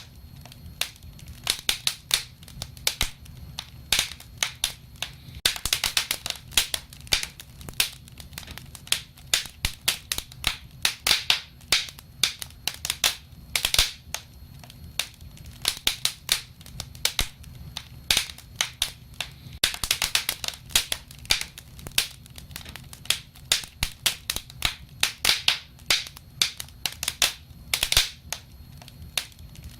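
Wood fire crackling: irregular sharp pops and snaps, several a second and bunched into dense flurries now and then, over a faint steady low rumble.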